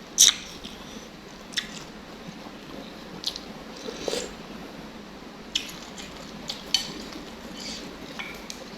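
Close-up eating sounds: a person chewing and taking crunchy bites, with a series of short sharp clicks and crunches scattered through, the loudest just after the start.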